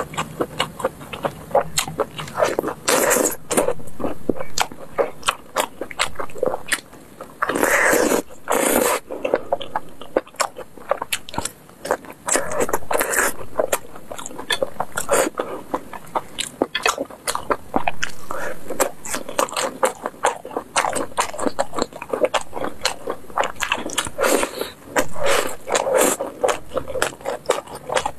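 Close-miked biting and chewing of sauce-glazed skewered food: a dense run of wet mouth clicks and chews, louder several times.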